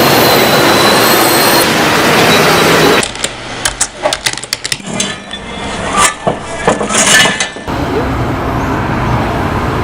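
A loud, steady train rumble. About three seconds in it cuts off abruptly to a quieter stretch of scattered sharp clicks and knocks. Near the end it cuts again to a steady noise.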